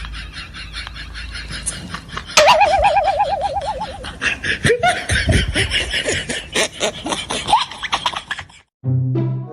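People laughing in quick repeated bursts, with a wavering tone for about a second and a half a couple of seconds in. The laughter cuts off near the end and music begins.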